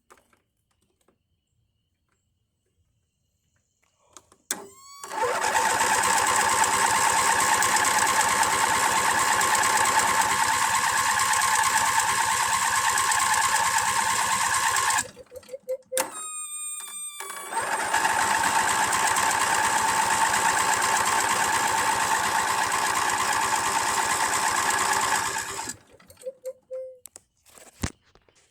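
Lawnmower's starter cranking the engine in two long attempts, about ten seconds and then eight, with a short break and a falling whine between them; the engine doesn't catch because the mower is out of gas.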